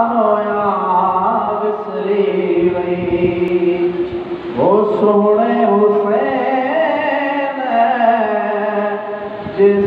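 A man singing a Sindhi naat solo, without instruments, in long held notes that slide between pitches; a new phrase starts about four and a half seconds in.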